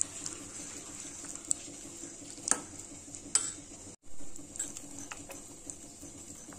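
Metal spoon stirring thick flour-and-banana batter in a steel bowl, with a few sharp clinks of the spoon against the bowl.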